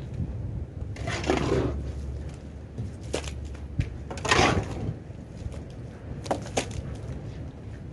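Shovel scraping wet cattle muck off the floor of a livestock trailer, in separate scraping strokes about a second in and four seconds in, with short knocks of the shovel in between, over a steady low rumble.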